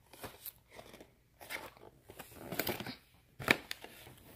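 Cardboard snack boxes being handled and shuffled: scraping, rustling and light taps, with one sharp knock about three and a half seconds in.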